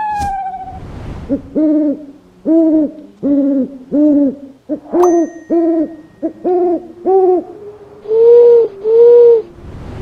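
An owl hooting: a run of about eight short hoots a little under a second apart, then two longer, louder hoots near the end.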